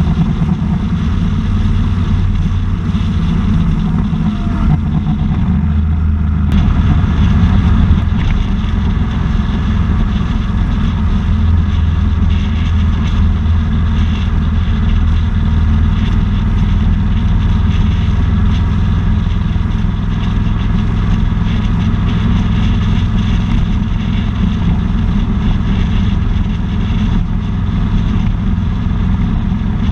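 Motorcycle engine running steadily at cruising speed, with heavy wind rush and road noise on the microphone.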